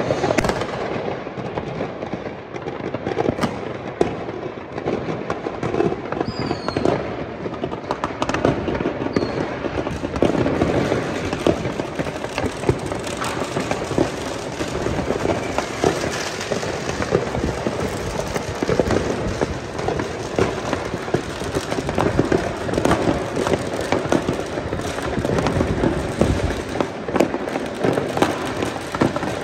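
Many fireworks going off across a city at once: a continuous barrage of bangs and crackles from aerial rockets and firecrackers, near and far, with a brief whistle about six seconds in.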